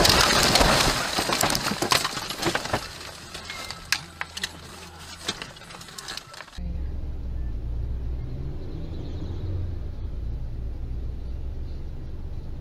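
Crash aftermath inside a dashcam car: loud scraping and rushing noise as the car ploughs into roadside bushes, with branches snapping and knocking against the body and cracked windshield, the knocks thinning out over several seconds. About six and a half seconds in it gives way abruptly to the steady low hum of another car's engine and tyres in traffic.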